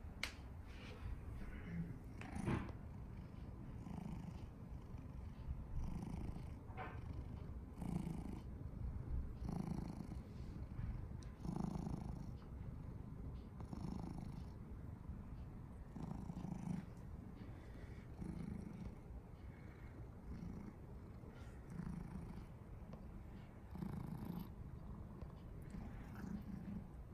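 Domestic cat purring up close, the purr swelling and easing about every two seconds.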